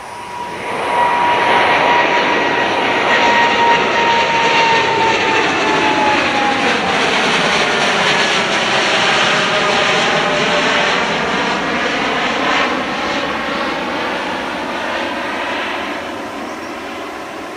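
Boeing 787-9 airliner's two turbofan engines at climb power just after takeoff, a loud jet roar passing overhead. The roar swells about a second in. A fan whine drops in pitch as the aircraft passes, and the sound then fades slowly as it climbs away.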